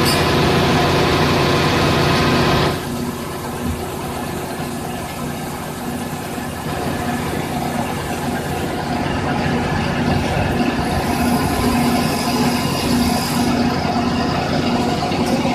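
Electric pipe-threading machine running steadily with a motor hum, dropping in level about three seconds in and then running on evenly.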